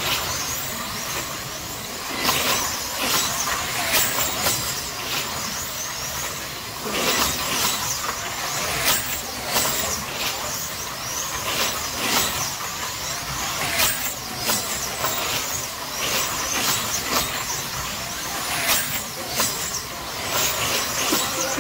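Several electric slot car trucks racing round a multi-lane track: their small motors and gears whine, the pitch rising and falling over and over as the cars speed up and slow for the curves, with frequent short clicks and rattles from the cars on the track.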